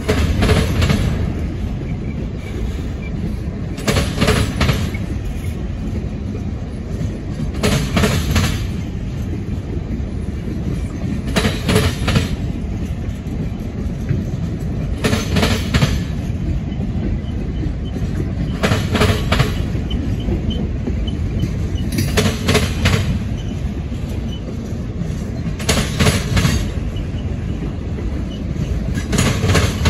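Norfolk Southern Triple Crown RoadRailer intermodal train rolling past at a steady pace. The wheels keep up a constant rumble on the rail, and every three to four seconds a quick cluster of clacks sounds as the bogie between two trailers crosses a rail joint.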